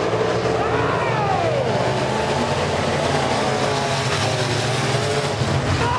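Several Pro Stock dirt-track race cars running at speed, their engines howling together, with engine notes rising and falling as cars rev and pass.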